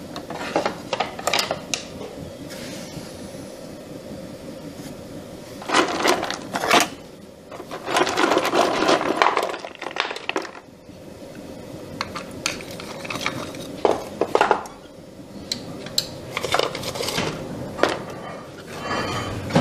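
Metallic clinks and scrapes as a steel poker works coal and charcoal in the small firebox of a 2-inch-scale live-steam Shay locomotive, coming in several bursts. This is the fire being built up in layers of charcoal and hard coal. Under it runs the steady hum of the electric blower fan that gives the fire its draft.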